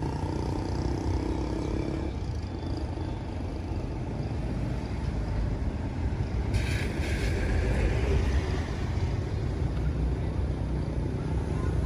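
Steady low engine rumble that grows a little louder in the second half, with a short hiss about six and a half seconds in.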